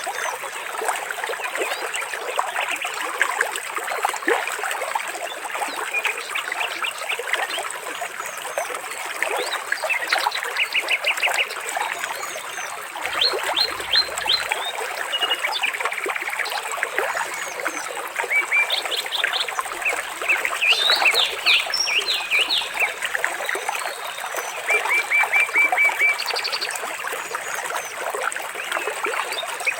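Water trickling and splashing steadily, with small birds chirping and giving quick trills of repeated notes over it.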